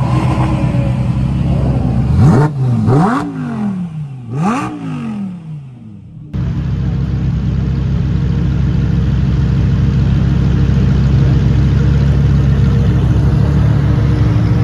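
Lamborghini Huracán's naturally aspirated V10 blipped twice, the pitch climbing sharply and falling back each time, about two and four seconds in. After a sudden cut, a steady engine drone as the cars crawl past at low speed.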